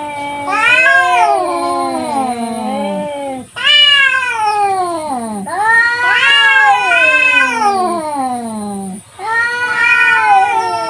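Two domestic cats yowling at each other in a fight standoff. There are about four long, loud wailing calls, one after another, each rising and then falling in pitch, and the two voices overlap at times.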